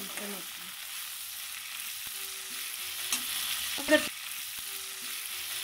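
Green chillies and onion sizzling in hot oil in an aluminium pot, stirred with a slotted metal spatula that scrapes the pot. There is a sharp knock of the spatula against the pot about four seconds in, and a lighter one just before it.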